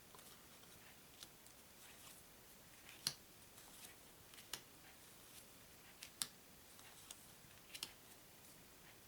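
Faint clicks of paper playing cards being handled and laid down one at a time, a short sharp tick every second or two, the loudest about three seconds in and about six seconds in.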